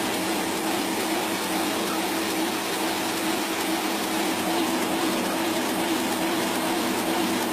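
Banknote sheet-processing machinery running: a steady, even hiss with a low hum underneath.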